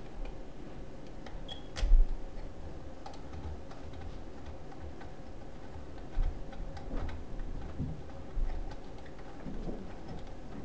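Small clicks and knocks of hands working wires and a cover into an electrical junction box, with one louder knock about two seconds in.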